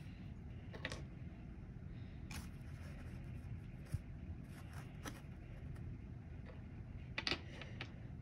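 Soft, scattered taps and scrapes of small crystal stones being set down in sand on a paper plate, over a low steady room hum; the loudest handful of taps comes near the end.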